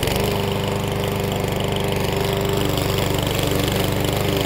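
Craftsman C459-36401 push mower's MTD overhead-valve single-cylinder engine running at a steady speed, freshly started after priming three times on a mower that had sat for a couple of days.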